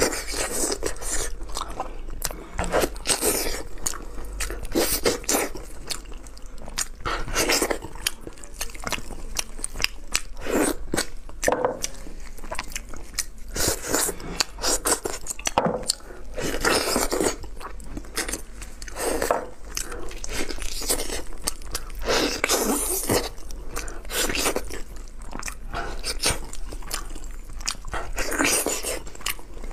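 Close-miked eating of braised pig's trotters: repeated bites and chewing, coming in irregular bursts.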